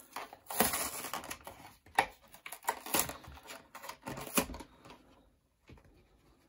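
Clear plastic blister being pried and torn off a cardboard backing card, a run of crackling plastic and tearing card with sharp clicks, dying down about four and a half seconds in.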